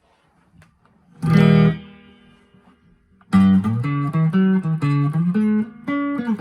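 1983/84 Made-in-Japan Squier Bullet electric guitar being played for a tone check: a chord struck about a second in and left to ring out, then from about halfway a steady run of picked notes and chords.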